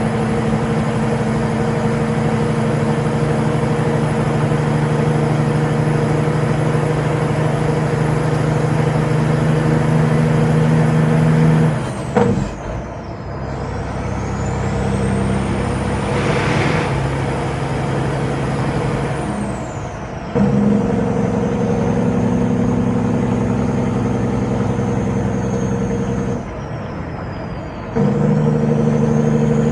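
Caterpillar diesel of a Peterbilt 389 semi truck pulling under power with a high turbo whine. The engine note and whine drop away and come back three times, about 12, 20 and 27 seconds in, with a brief hiss about halfway through.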